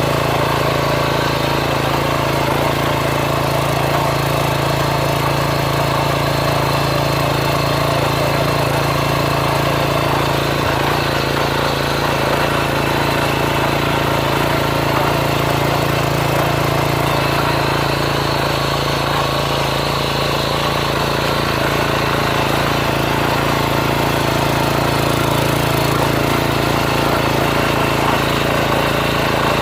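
Mini tiller's small engine running steadily at an even speed.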